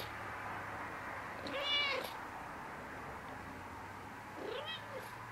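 Long-haired domestic tabby cat meowing twice: a loud meow about one and a half seconds in, then a shorter, fainter one near the end, each rising and falling in pitch.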